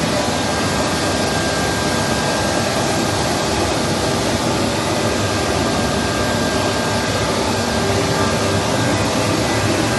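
Bulleri 3515 FPM CNC woodworking machine running, a steady whirring noise with a few faint steady tones through it.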